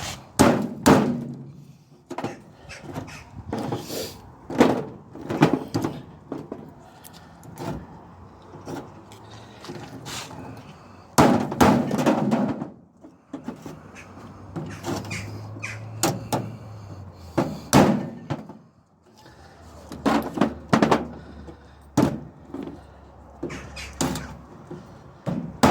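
Irregular, repeated hammer blows on small microwave fan motors, metal knocking on metal as the copper coils are knocked out of their cores.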